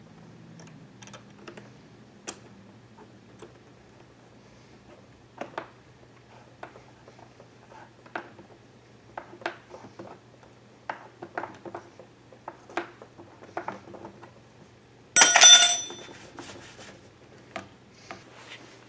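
Plastic blower tube and fittings being handled and pushed together: scattered light clicks and knocks, with one loud, buzzy rasp lasting about half a second roughly fifteen seconds in.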